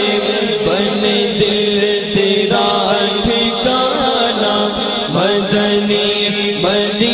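Group of men's voices chanting a devotional salam to the Prophet, with no instruments: a steady held drone from the backing voices under a lead voice that glides up between notes several times.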